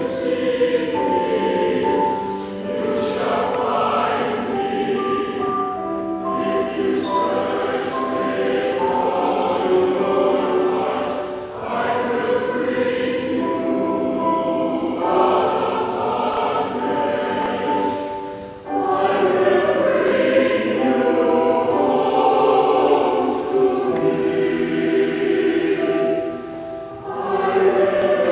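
Mixed church choir singing a choral anthem in sustained chords, with brief breaks between phrases about eleven, eighteen and twenty-seven seconds in.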